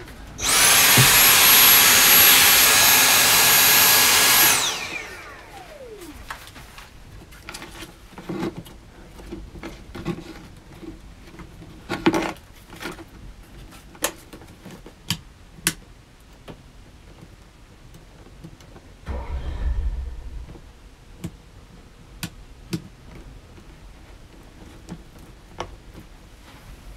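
A small electric motor starts, runs at a steady high whine for about four seconds, then winds down with falling pitch. After it come scattered light clicks and taps of panel pieces being handled.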